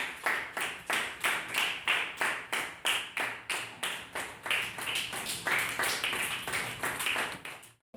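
Group of children clapping their hands in a steady rhythm, about three claps a second, stopping abruptly near the end.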